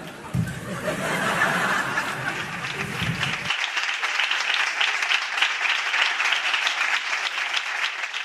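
Audience applauding, a dense steady clapping. About three and a half seconds in, the lower room sound cuts off abruptly and the clapping carries on.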